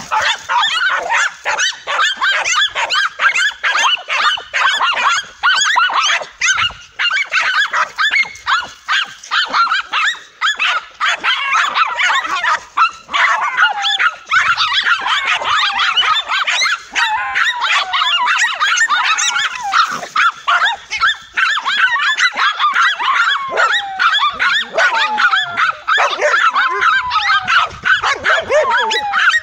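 A pack of dogs barking continuously in rapid, overlapping barks at a cornered tegu lizard. High whining yelps that rise and fall are mixed in through the second half.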